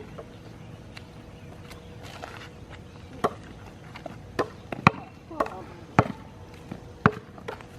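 A basketball bouncing on a hard court in single bounces roughly a second apart, starting about three seconds in.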